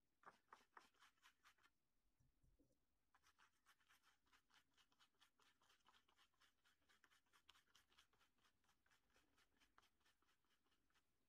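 Faint, quick dabbing taps of a stencil brush pouncing fabric paint through a plastic stencil sheet onto a cloth pot holder, a few taps, a short pause, then a steady run of several taps a second.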